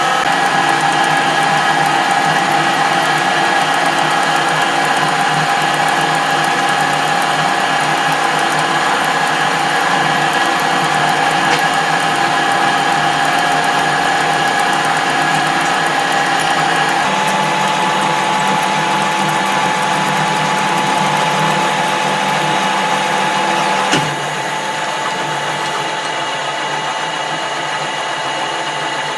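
Small metal lathe running under power feed, its gears whining steadily as it takes a heavy cut and breaks the swarf into chips. About 24 seconds in there is a sharp click and the running drops a little quieter.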